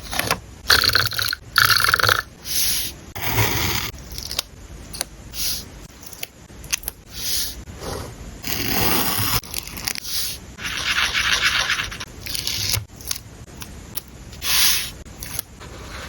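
Paper and stationery handling for a journal spread: a series of short rubbing and scraping sounds with a few sharp clicks between them.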